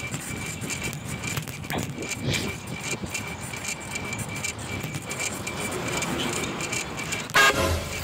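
Road traffic running past, then about seven seconds in a loud, brief blast from a Fuso truck horn fitted to a bicycle.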